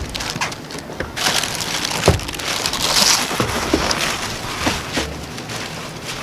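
Rustling and crumpling of a soft fabric travel bag being folded and squashed by hand, with scattered light knocks. It is loudest in the middle, a few seconds in.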